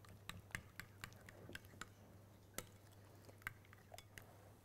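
A utensil beating a thin egg-and-cream custard mixture in a glass bowl: faint, irregular light clicks against the glass, more frequent in the first two seconds and sparser after.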